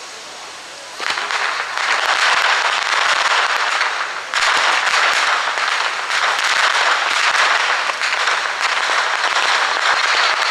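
Goldfish fireworks (kingyo hanabi) burning on the river surface, a dense hissing full of rapid crackles. It starts suddenly about a second in, eases briefly near the middle, then picks up again.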